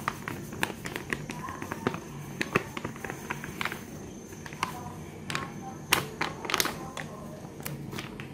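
Plastic flour packet crinkling and tapping as dry flour is poured from it into a bowl: scattered light clicks and crackles, most of them in the second half, over a low steady hum.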